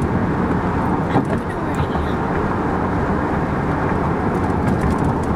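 Steady road and engine noise inside the cabin of a moving Buick Regal.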